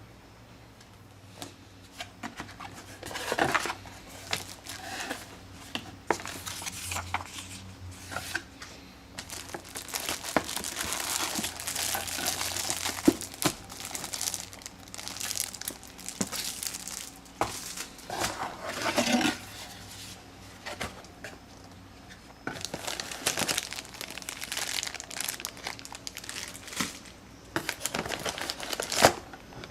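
Packaging being unwrapped during a camcorder unboxing: plastic and paper crinkling and tearing in irregular bursts, with scattered sharp clicks and knocks from handling.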